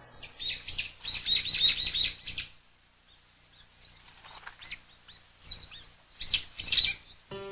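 Small birds chirping: a quick run of short, high chirps for the first two seconds or so, a few scattered calls, then another flurry near the end.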